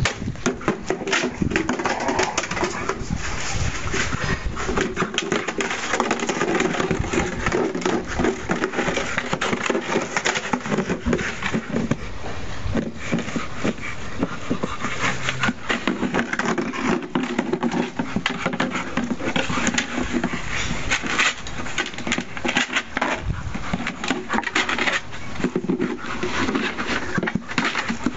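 A dog mouthing, pushing and batting a plastic watering can about: a constant, irregular run of hollow clattering knocks, scrapes and rattles.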